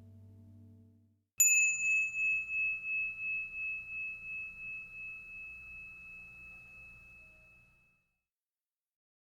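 A small high-pitched metal bell struck once, ringing with a pulsing waver and dying away over about six seconds.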